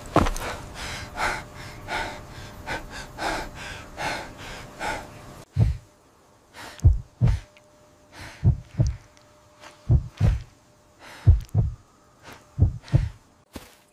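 Heavy, rapid panting of a frightened man, about two breaths a second. About five seconds in it gives way to a heartbeat sound effect: pairs of deep low thuds about every second and a half.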